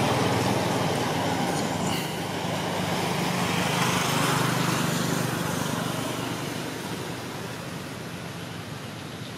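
A motor vehicle's engine running with road traffic noise: a steady low hum under a broad rushing noise that fades gradually over the second half.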